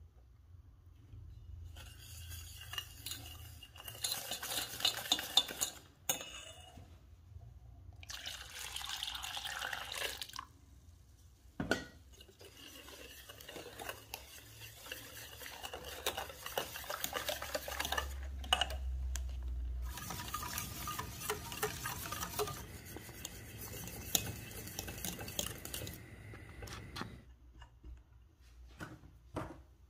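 A utensil stirring and scraping in a mixing bowl, with clinks against the bowl, in four spells of mixing separated by short pauses.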